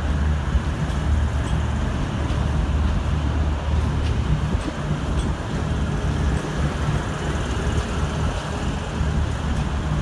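V/Line N class diesel-electric locomotive running at the platform, its diesel engine giving a steady low hum with no horn sounded.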